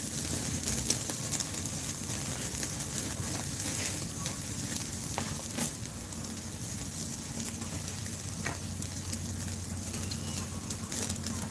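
Beef grilling over charcoal: a steady sizzle with scattered sharp crackles and pops.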